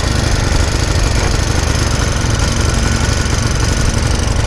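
49cc four-stroke motorized-bicycle engine idling steadily on choke just after a cold start.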